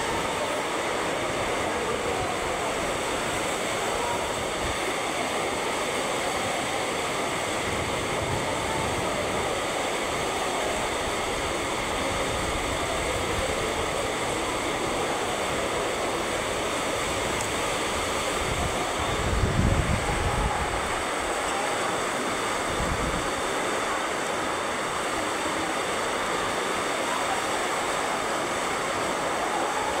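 Torrential rain falling in a steady hiss. About two-thirds of the way in, a short low rumble rises over it for a couple of seconds.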